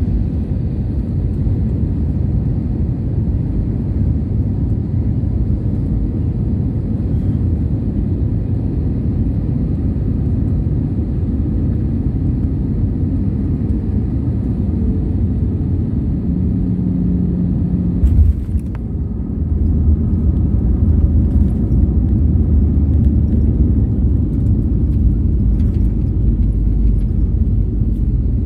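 Cabin noise of an Airbus A320-family airliner landing: a steady low rumble on final approach, a sudden thump about 18 seconds in as the wheels touch down, then a louder low rumble as it rolls out with its spoilers up.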